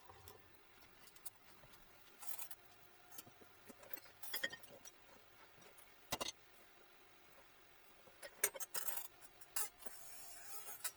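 Handling noise from small metal parts: irregular light clicks, knocks and clinks, the sharpest about six seconds in and a cluster near the end.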